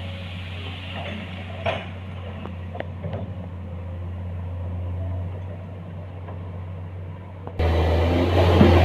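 Komatsu excavator's diesel engine running steadily at low speed, with a few light clicks and knocks. About seven and a half seconds in, it suddenly gets much louder and harsher, as the engine is throttled up.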